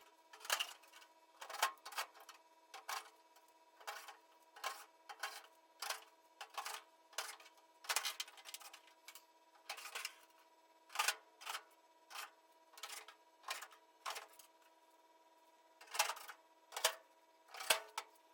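Hand work on a sheet-steel patch piece: short scraping clicks of metal being handled and worked, about one or two a second at an uneven pace, over a faint steady hum.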